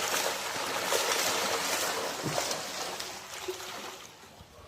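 Water splashing and churning as a school of bubara (trevally) in a pond scramble at the surface for thrown food; the splashing fades away toward the end.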